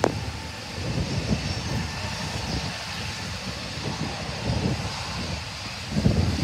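Distant jet airliner engines running at taxi power, a steady faint high hum, with wind gusting on the microphone.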